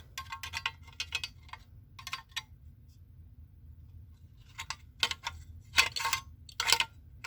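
Clicks and light clinks of the Tanita No. 2 heat alarm's cover being worked back onto the unit, in two clusters with a pause of about two seconds between them.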